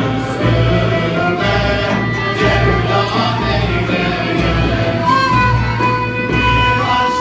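Turkish music ensemble of violin, oud, kanun, ney and frame drum accompanying a male choir singing in unison, over a steady frame-drum beat. A long held note enters about five seconds in.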